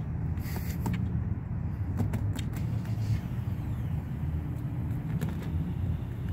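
Steady low rumble, with a few light taps and rustles as a cat bats at a straw on a cloth car seat.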